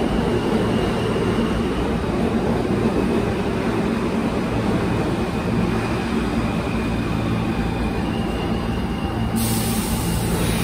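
New York City subway train running, heard from inside the car: a steady, loud rumble and rattle of wheels on the track, with a faint high whine over it.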